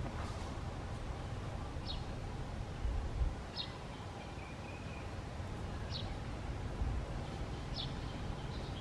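Outdoor ambience: a bird giving short, high chirps about every two seconds over a low rumble that swells now and then.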